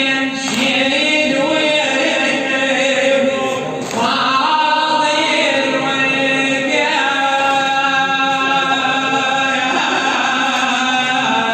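A man's voice chanting a traditional Shia religious lament (latmiya) in long, ornamented held phrases, over a steady low drone.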